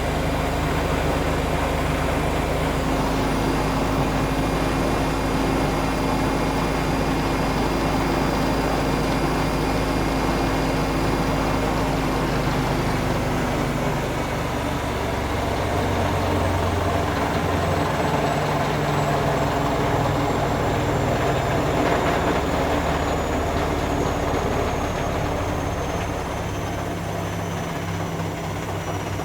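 Zanussi ZE 16 washing machine spinning at high speed on its final spin with an extremely unbalanced load: a loud, steady motor and drum noise. A thin high whine slowly falls in pitch over the second half.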